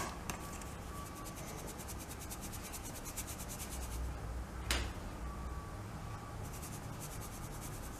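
Hand-held stainless steel flour sifter being worked over a bowl: its agitator wires scrape across the mesh in a fast, even rasping that pauses in the middle, with one sharp click about four and a half seconds in.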